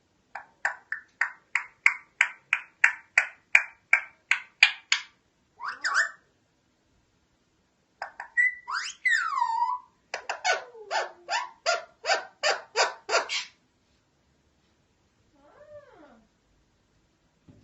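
Alexandrine parakeet calling: a fast run of short, repeated calls, about three a second, for some four seconds, then a few calls that glide up and down in pitch, followed by a second fast run of repeated calls. One faint gliding call comes near the end.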